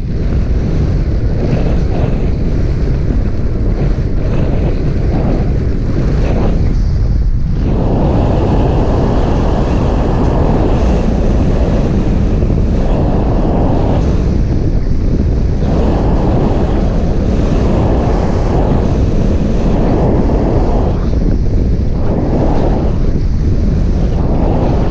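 Wind rushing over the camera's microphone during a fast ski run, mixed with the scrape of skis on the hard-packed snow. The noise is loud and swells and eases every second or two.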